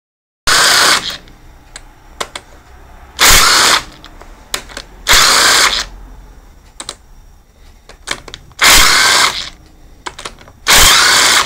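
Air-powered wrench spinning out the servo cover bolts on a cast iron Powerglide transmission in five short bursts of about half a second each. Small clinks come between the bursts.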